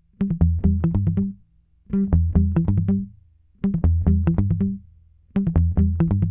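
Background music: a quick plucked-string riff over a bass line, played in four short phrases with brief pauses between them.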